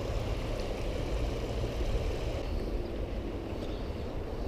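Steady outdoor background of wind rumbling on the microphone, with a hiss of creek water running over rocks that fades about halfway through.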